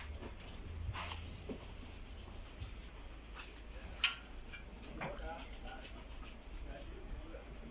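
Faint rubbing and scattered light clicks of a tool working on the oil jets as they are tightened into the Land Rover TD5 engine block, with one sharper click about four seconds in.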